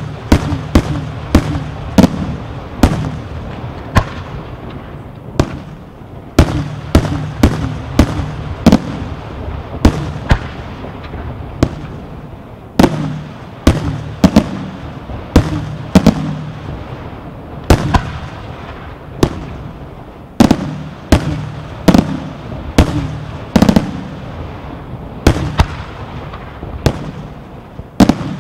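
Aerial firework shells bursting in rapid succession: sharp bangs about one to two a second, each trailing an echoing rumble.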